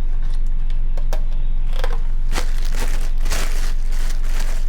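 Plastic crinkling with light clicks and knocks, the sound of seasoning jars and their packaging being handled, over a steady low hum.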